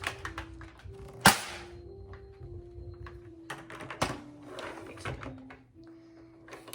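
Toy foam dart blaster being worked and fired: a loud sharp snap about a second in, another near the middle, and lighter mechanical clicks between them. A faint tune plays underneath.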